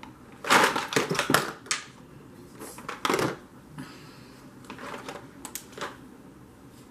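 Clattering and rustling of small makeup items being handled and rummaged through: three bursts of sharp clicks and knocks, the loudest about half a second to two seconds in.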